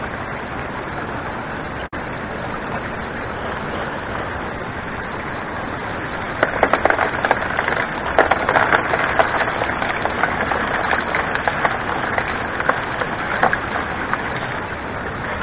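Water rushing and splashing off the back of a 3D-printed highbanker sluice into the creek. From about six seconds in, gravel and stones are poured from a bucket onto the grizzly screen and deck, a dense rattle of small knocks over the water.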